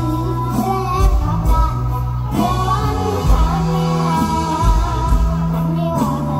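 A girl singing mor lam, Thai Isan folk-pop, into a microphone over an amplified band with drums and heavy bass.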